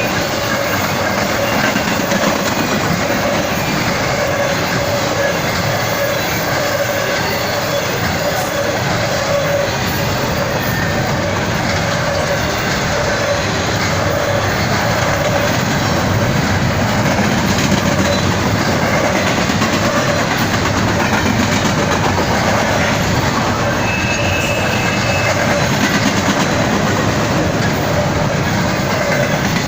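Norfolk Southern intermodal freight train rolling steadily past, its cars' wheels clattering and rumbling over the rails with a clickety-clack.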